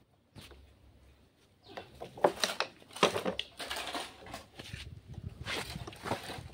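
Hand tools (pliers and a metal rod) clicking and scraping against pistons and connecting rods from a stripped engine. The irregular run of sharp metal clicks and scrapes starts about a second and a half in.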